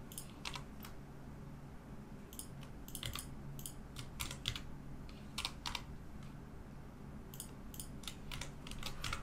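Computer keyboard keystrokes: about a dozen short clicks at irregular spacing, over a faint steady low hum.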